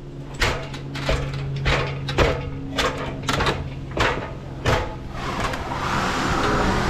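Footsteps knocking on the rungs of an aluminium extension ladder while climbing, about eight knocks spaced roughly half a second to a second apart. An engine runs steadily underneath and grows louder near the end.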